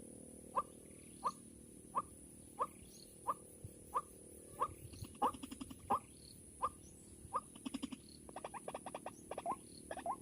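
White-breasted waterhen calls: short, sharp notes repeated about one and a half times a second, quickening into a rapid stuttering run of notes in the last few seconds.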